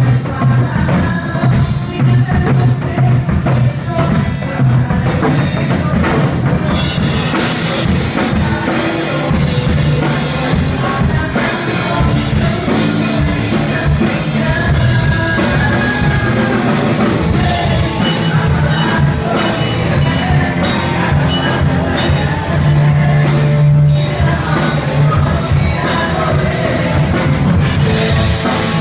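Live worship band playing a song, with drum kit, bass and singing; cymbals and hi-hat join in about seven seconds in and the band plays fuller from there.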